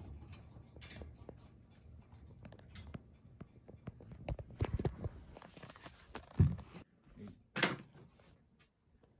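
A cat clambering on top of a wire pet cage, with small clicks and knocks of the wire and rustling of plastic bags and cardboard. A loud thump comes about six and a half seconds in, and a short rustle a second later.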